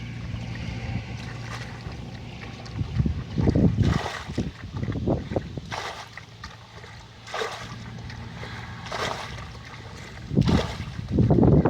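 Water splashing and sloshing in irregular bursts, the loudest near the end, over a low steady hum that fades out about two seconds in.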